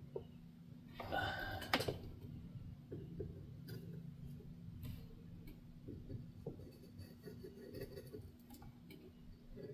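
Quiet bench-work sounds while solder wick and a soldering iron pick up old solder from a circuit board: scattered light clicks and taps over a steady low hum. A louder, rougher sound comes about a second in and lasts about a second.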